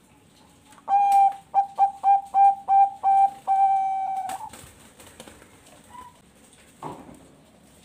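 Zebra dove (Thai-bred perkutut bangkok) cooing one full song phrase: a long opening note, a quick run of about eight short clipped notes, then a long drawn-out closing note that fades. A single short knock follows a few seconds later.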